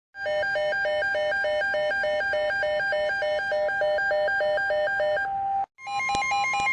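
Electronic emergency-alert tone: a steady beep with a second pitch alternating below and above it about four times a second. Just after five seconds it holds a single tone, cuts off briefly, and starts again at a higher pitch.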